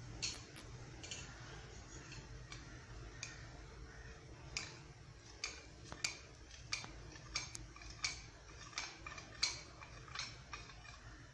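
Wire whisk clicking against the side of a metal saucepan as milk is whisked: light, sharp ticks, sparse at first, then about one every half second to second.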